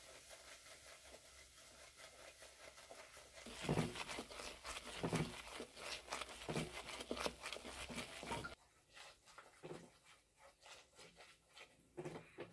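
A spoon stirring béchamel sauce in a stainless steel pot, scraping and clicking against the pot in quick, irregular strokes. A faint hiss comes first; the stirring starts about three seconds in, is loudest for about five seconds, then turns to fainter, scattered taps.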